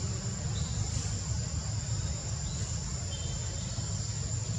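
Outdoor ambience: a steady high insect trill over a constant low rumble, with a few faint short chirps.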